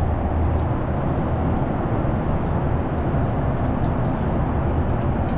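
Steady cabin noise of an airliner in flight: an even rush of engine and airflow noise with a low hum underneath and a few faint ticks.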